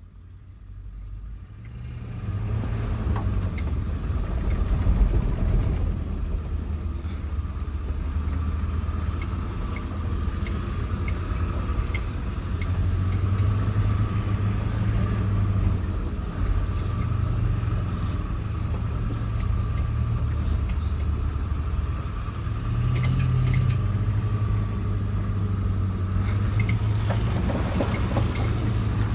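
Vehicle engine running with a low rumble, its pitch rising and falling as the revs change, with a steady thin whine over it.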